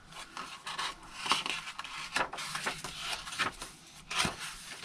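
Paper pages of a handmade journal being turned and handled: dry rustling with a series of short, sharp crinkles and flicks.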